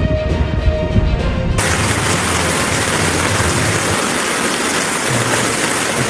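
Background music cuts off abruptly about one and a half seconds in, giving way to a steady, loud hiss of water.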